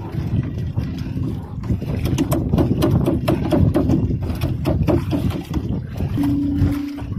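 Wet gill net being hauled by hand over the side of a fishing boat, with a run of clicks, knocks and rustles from the mesh against the hull, over a steady low rumble. A brief steady hum comes in near the end.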